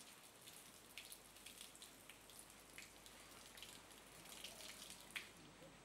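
Faint splashing and dripping of water running from a garden hose onto a wet floor, with scattered small drip ticks and one sharper tick near the end.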